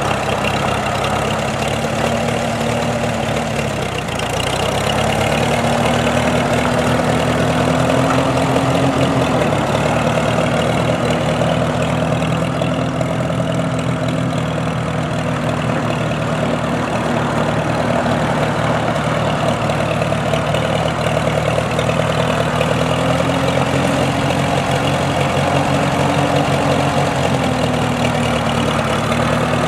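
International Harvester H tractor's four-cylinder engine running at low speed as the tractor is driven. Its pitch dips briefly about four seconds in and rises for a few seconds near the end before settling back.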